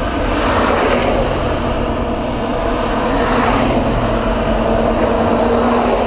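Boat engine running steadily under loud wash of water and wind, with a few steady engine tones and gentle swells in level.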